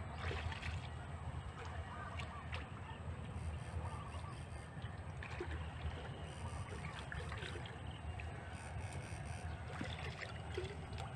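Shallow canal water sloshing and trickling as a wader moves through it and sweeps an electrofishing rod and dip net in the water, with small scattered splashes over a steady low rumble.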